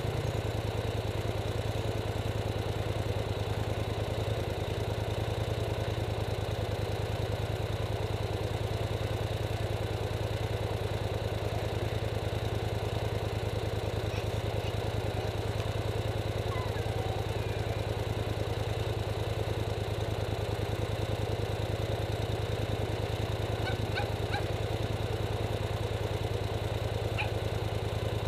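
Polaris Sportsman 850 XP ATV's twin-cylinder engine idling steadily while the machine stands still, with a low, even hum.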